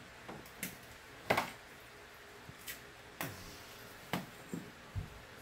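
About eight short, sharp clicks and taps at irregular intervals, the loudest a quick double tap about a second in, ending with a duller low thump near the end.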